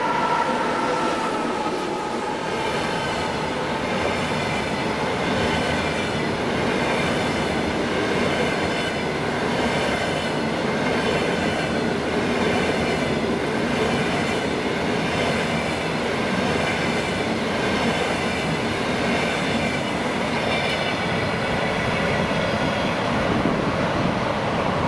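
Double-deck passenger cars rolling past at speed: a steady rumble and hiss of wheels on rail, with recurring clicks as the wheelsets cross rail joints. At the start a whine from the just-passed EP2K electric locomotive fades, dropping slightly in pitch.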